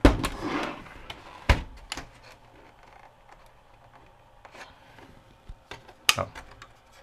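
Sharp plastic clicks and knocks as the front bezel's snap clips are worked loose on a VHS VCR. A few separate clicks, the loudest at the very start, about a second and a half in and about six seconds in, with faint handling rustle between.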